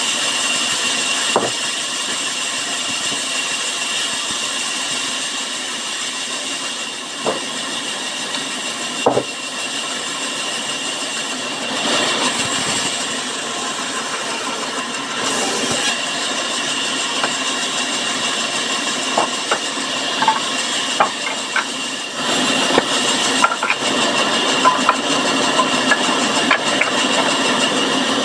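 Sawmill saw running and cutting timber: a steady high whine over a noisy hiss, with scattered short knocks and clicks.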